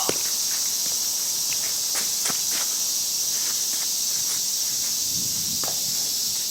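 Steady high-pitched chorus of insects, with a few faint short knocks scattered through it.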